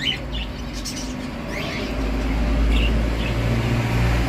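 Birds chirping in short, scattered calls over a steady low rumble, which grows louder in the second half.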